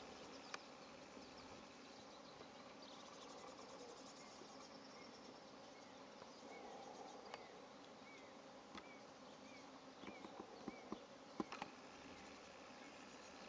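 Faint buzzing of flying insects in a wet meadow, with a run of short, faint chirps in the middle and a few sharp soft ticks near the end.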